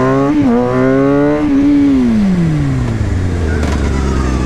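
Motorcycle engine pulling up through the revs. About a second and a half in the throttle closes, and the engine note falls steadily as the bike slows, settling into a low steady drone over wind noise.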